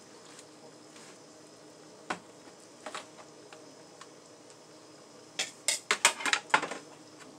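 Kitchen utensils knocking and clinking against cookware while a baked meatloaf is cut and served: a few light isolated knocks, then a quick run of louder clinks near the end.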